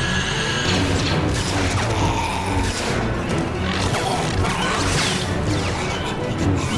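Action-scene music mixed with fight sound effects: repeated crashes and impacts, and lightsaber swings.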